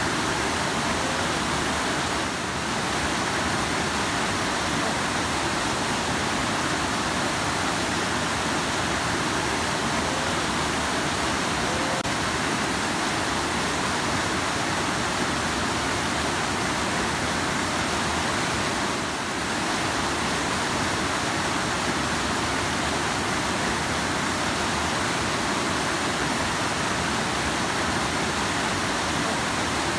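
Rushing river: a steady, even rush of flowing water.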